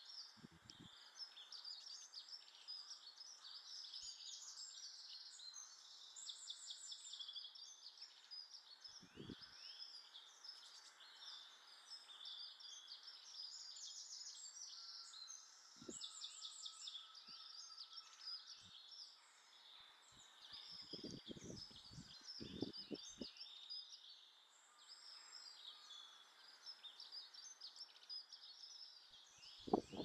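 Faint, continuous chatter of many small birds calling over one another in quick overlapping chirps. A few dull knocks come through it, with a quick run of them a little past the middle, as the Eurasian jay on the log feeder pecks at it.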